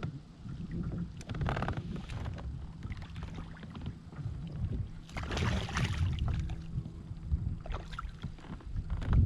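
Knocks and handling noises on a fishing kayak over a constant low rumble, with a louder rushing splash-like noise about five seconds in.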